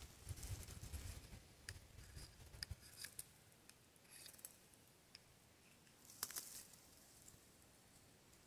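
Faint, sharp clicks and short scrapes of a fire being struck into tinder inside a small stone fire ring, a scattered cluster of them, then one longer, stronger scrape about six seconds in as the tinder catches.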